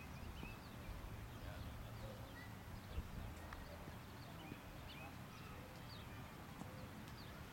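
Faint outdoor ambience: a low steady rumble with scattered short bird chirps, and a single sharp knock about three seconds in.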